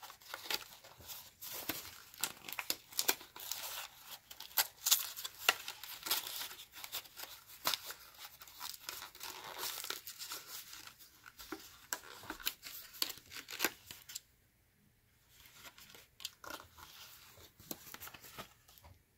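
Cardboard-and-plastic blister packaging of a Hot Wheels car being torn and crinkled open by hand: a dense run of irregular rips and crackles that thins out about 14 seconds in to a few softer crinkles.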